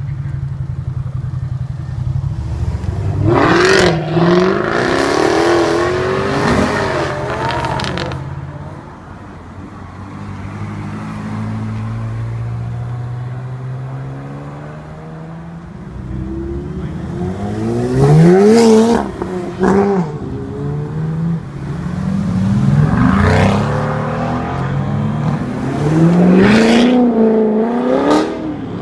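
Sports cars revving and accelerating away one after another, each engine note climbing and dropping back as it shifts gear, in three main bursts. Between the bursts there is a lower, steady engine rumble.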